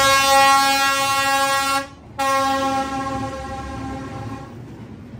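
Diesel locomotive's horn sounding two long blasts as it passes close by. The first lasts almost two seconds; after a short break, the second fades away over about two seconds.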